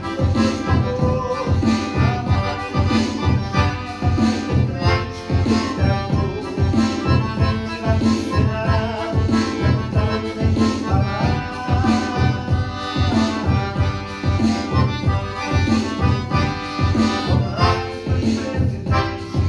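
Piano accordion playing a lively tune, its reeds sounding a melody over a steady pulsing bass-and-chord rhythm of about two to three strokes a second.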